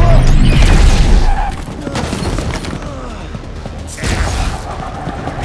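Cartoon action-scene blast effects: a loud blast right at the start lasting about a second and a half, then a second blast about four seconds in, with the action score playing underneath.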